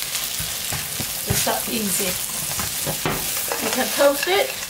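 Spice-bag ingredients sizzling in a shallow layer of oil in a non-stick wok while being stirred and tossed, with a steady sizzling hiss and repeated scraping strokes of the utensil.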